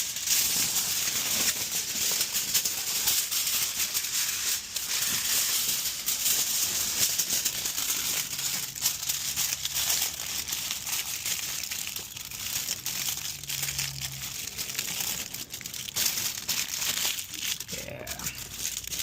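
Aluminium foil crinkling and crackling as it is pulled off and wrapped around by hand, a continuous run of small crackles throughout.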